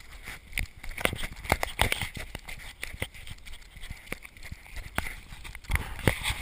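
Water splashing close up around a swimmer, heard as an irregular string of sharp splashes and knocks.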